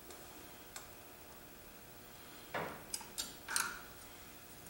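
Small metal clicks and a brief scrape from a screwdriver and a small screw working at the terminals of a magnetic starter: one faint click near the start, then a quick cluster of sharper clicks and a short scrape past the middle.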